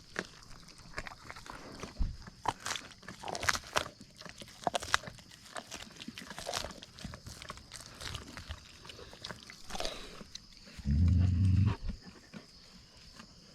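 Dogs chewing and crunching raw deer carcass, bones and meat giving a run of irregular sharp cracks and crunches. Near the end comes a loud, low rumble of about a second.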